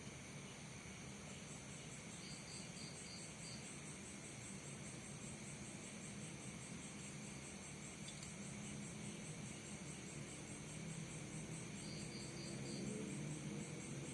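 Crickets and other night insects chirping: a fast, even high pulsing of about five chirps a second over a steady high drone, with two short runs of lower chirps, one near the start and one near the end. A faint low hum lies underneath and grows slightly louder near the end.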